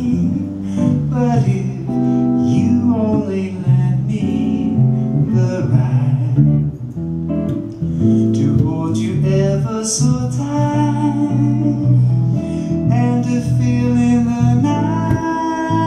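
A man singing a slow ballad with long held notes, accompanied by a guitar.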